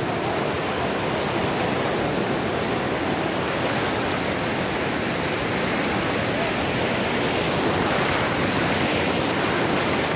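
Ocean surf breaking and washing through the shallows: a steady rush of foaming water that swells a little toward the end.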